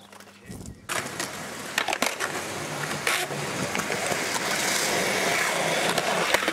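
Hard wheels rolling over concrete at a skatepark, a rolling rumble that starts about a second in and grows louder, broken by a few sharp clacks of the board or deck hitting the surface.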